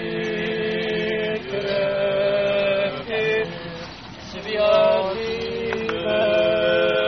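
Men chanting an Orthodox funeral hymn in long, drawn-out held notes, with a brief lull about four seconds in before the chant resumes.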